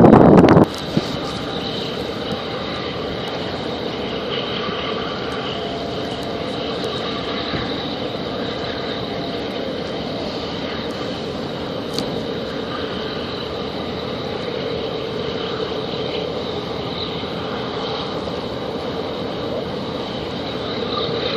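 Wind buffeting on the microphone cuts off about half a second in, leaving a steady engine drone with several held tones and a single sharp click near the middle.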